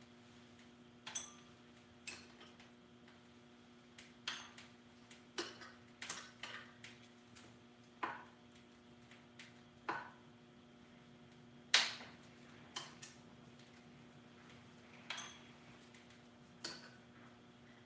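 Scattered metallic clinks and taps of hand tools and small metal parts being handled and set down, about a dozen at irregular intervals, over a faint steady hum.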